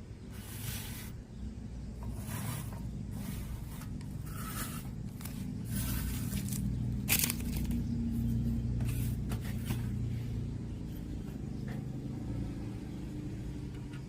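Repeated short scraping and rustling strokes, a dozen or so, from parts being handled and worked on during a cassette player repair, over a steady low hum.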